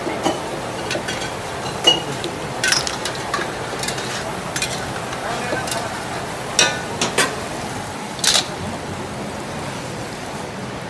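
Crab sizzling as it is stir-fried in a wok over a gas burner, with a metal ladle scraping the pan and striking it with several sharp clinks.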